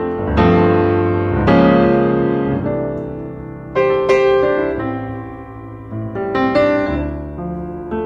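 Background piano music: chords struck every second or two and left to ring and fade.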